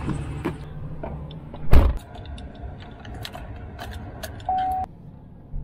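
Chevrolet Silverado 2500 HD pickup's driver door clicks open, then shuts with one heavy thump about two seconds in. After that the keys jangle and click as the key goes into the ignition, and a short single-tone chime sounds near the end.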